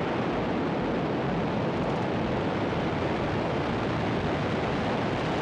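Falcon 9 first stage's nine Merlin engines at full thrust just after liftoff: a steady, even roar with no breaks.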